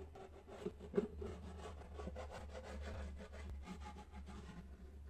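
Hands rubbing and handling felt and cardboard craft pieces: faint, scratchy rustling made of many small ticks, over a steady low hum.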